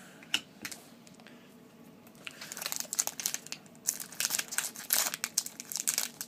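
Crinkling of a foil trading-card pack wrapper being handled and pulled at, starting about two seconds in and going on in rapid crackles.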